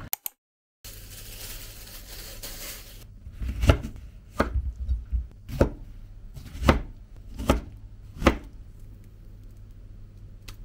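Kitchen knife slicing through a citrus fruit and knocking onto a bamboo cutting board, six sharp chopping strokes about a second apart.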